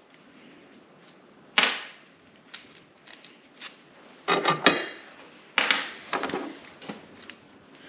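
Steel bolts clinking and rattling against the metal base of a bench vise as they are dropped and worked into its mounting holes. There are sharp metallic clinks with a short ring, one loud one near the start and two clusters of rattling later on.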